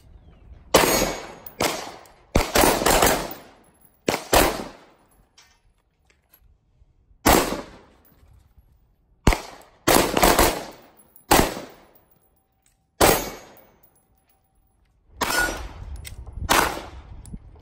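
Pistol shots fired in singles and quick strings of two or three, well over a dozen in all, each sharp crack trailing off over about half a second, with pauses of one to two seconds between strings.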